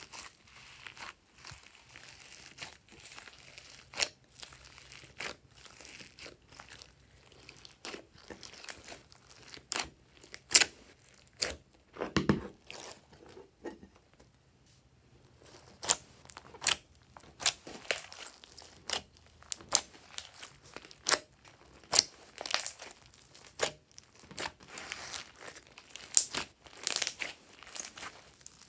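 Hands squishing and kneading glossy slime mixed with foam beads, giving irregular wet clicks, pops and crackles, with a quieter spell about halfway through.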